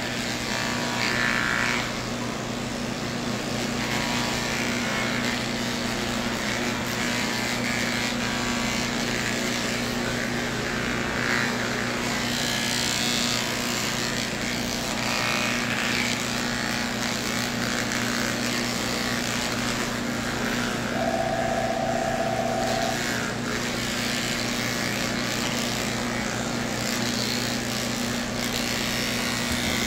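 Electric pet clippers running with a steady hum while shaving matted fur off a cat.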